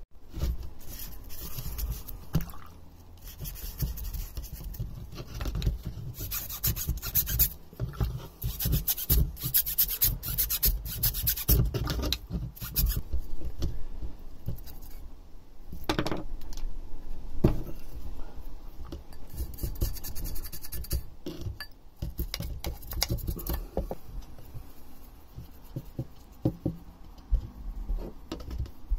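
Small stiff brush scrubbing a greasy metal engine part, bristles rasping in uneven strokes, with a couple of sharp clicks around the middle.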